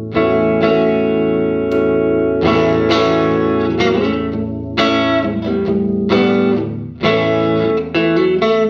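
Electric guitar played through a reclaimed, converted tube amplifier with a dirty, overdriven tone. Chords are struck and left to ring, a new strum every second or so, coming quicker near the end.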